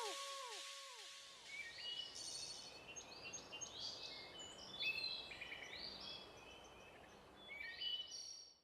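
Faint songbirds chirping and twittering in many short, quick calls, after the last echoing synth notes of the song die away in the first second; the sound cuts off suddenly near the end.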